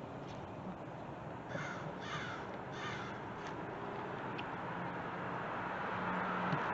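A bird calling three times in quick succession, about one and a half to three seconds in, over steady outdoor background noise.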